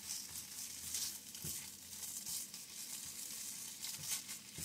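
Fried rice sizzling in a hot skillet while a spatula stirs it and scrapes the pan bottom in irregular strokes.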